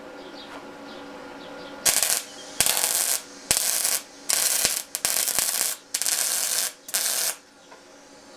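MIG welder laying short tack welds on steel: about seven brief bursts of crackling hiss, each starting and cutting off sharply as the torch trigger is pulled and released.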